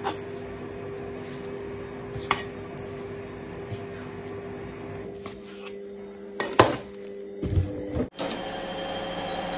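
A steady electrical hum in a small room, broken by a few light clinks of kitchenware, with a sharper clatter about six and a half seconds in. The sound changes abruptly shortly after.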